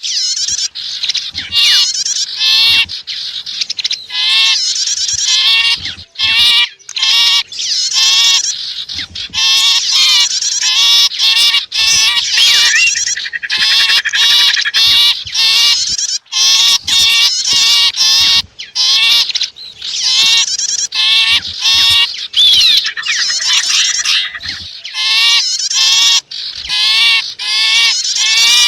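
Bird-lure recording mixing sipu and prenjak (prinia) calls: loud, fast-repeated high chirps and trills, layered almost without pause and broken only by brief gaps, the kind of call played to draw wild small birds in close.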